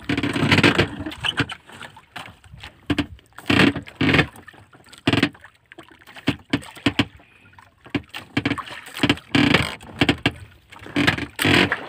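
Water slapping and knocking against the hull and bamboo outriggers of a small outrigger fishing boat, in irregular splashes about once or twice a second, while a handline is hauled in over the side.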